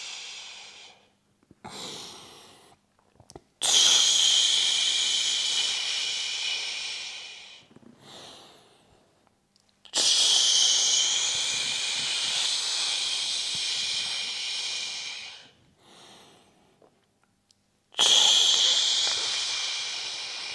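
A man breathing through a slow squat exercise: short inhales through the nose, each followed by a long, hissing exhale through the mouth, three times.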